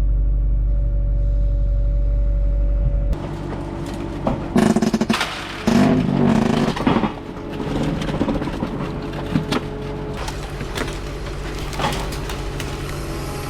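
Skid steer engine idling steadily. About three seconds in, this gives way abruptly to clattering and knocking noise with sharp knocks scattered through it.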